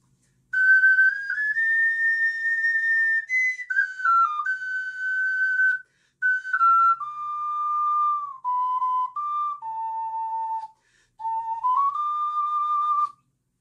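Ocarina playing a slow melody in three phrases, one clear note at a time. Each phrase stops sharply as the breath is cut off, the note-ending technique being demonstrated.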